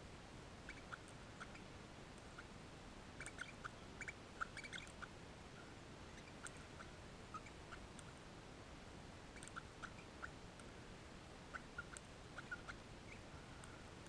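Crimson rosella cracking and husking sunflower seeds with its beak: faint, irregular clicks and cracks that come in small clusters.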